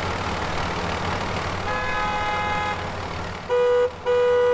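A vehicle horn honks three times over a steady low rumble: a softer honk lasting about a second, about two seconds in, then two short, loud blasts in quick succession near the end.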